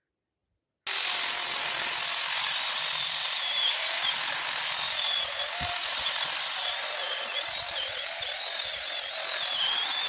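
Small handheld power cutting tool running steadily, a high motor whine wavering a little over a steady noise. It starts abruptly about a second in, after silence.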